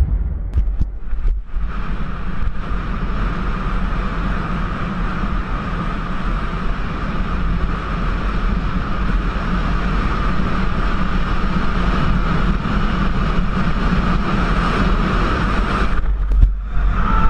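Steady wind rush buffeting an action camera's microphone at speed, with a low rumble and a steady higher whine from the ride, breaking off abruptly near the end.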